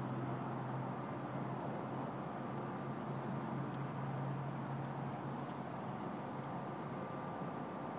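Crickets chirping in a steady high-pitched trill. A separate run of short chirps sounds from about one to four seconds in. A low hum and steady background noise lie underneath, and the hum fades out about halfway through.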